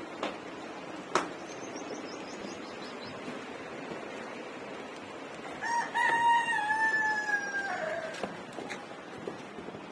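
A rooster crowing once: one long call of about two and a half seconds a little past the middle, held and falling slightly in pitch at the end. Two sharp knocks sound in the first second or so.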